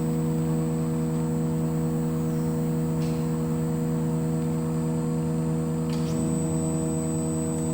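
CNC milling machine running with a steady hum, with a faint high whine above it and a couple of light clicks about three and six seconds in.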